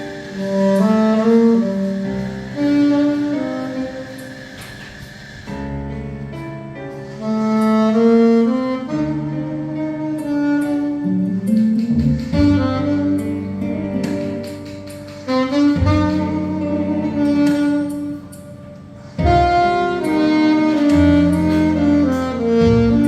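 Saxophone playing a melody of held and moving notes over an instrumental accompaniment with a bass line.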